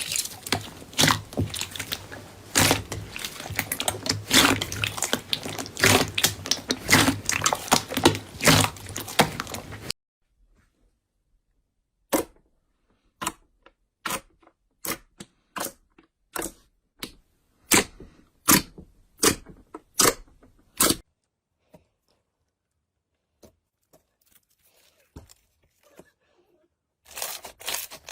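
Slime being pressed and squeezed by hand, making dense crackles and pops for about ten seconds. After a brief silence come single sharp clicks at a steady pace of under a second each, a quiet stretch, and dense crackling again near the end.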